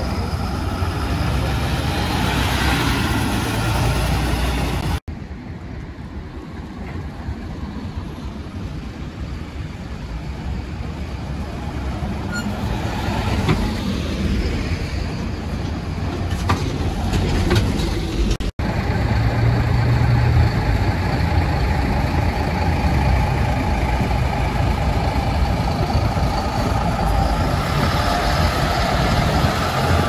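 City buses driving past at close range, engines running and tyres on the road, over general street traffic. The sound breaks off twice between shots, and a deep engine rumble swells just after the second break.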